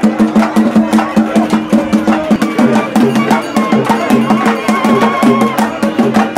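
Traditional Tamil festival drumming played live: a fast, steady beat of about four strokes a second, with a sustained low tone under it and a wavering higher melody line coming in around the middle.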